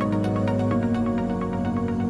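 Background music: held, calm chords under a quick, even run of short notes.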